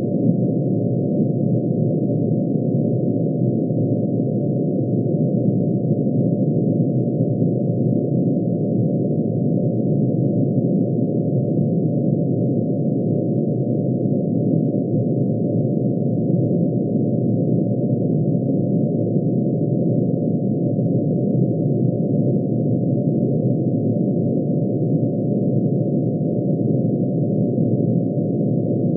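Synthesized drone of many sine tones sounding together, each tone one spectral line of mercury's atomic emission spectrum shifted down to an audible pitch. It is a dense, low cluster of tones that holds steady and does not change.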